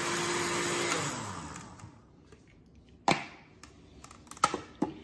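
Oster blender with a glass jar running on yogurt sauce, switched off about a second in; the motor winds down and falls quiet over the next second. A few sharp clunks follow as the glass jar is handled and lifted off the base.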